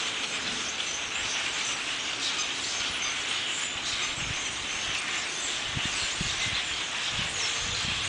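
A large flock of birds calling all at once in the trees, a dense unbroken chatter. Wind buffets the microphone in low gusts around the middle and again near the end.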